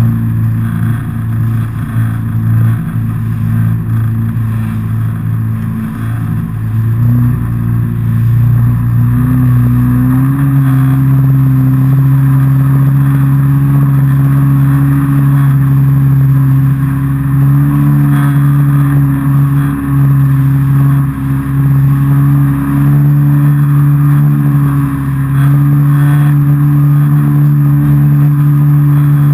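Jet ski engine running under way. Its pitch rises between about seven and ten seconds in as it speeds up, then holds steady, over a hiss of water spray.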